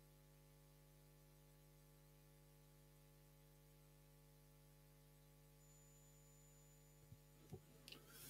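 Near silence with a steady electrical hum from the microphone and sound system. A few faint knocks come near the end.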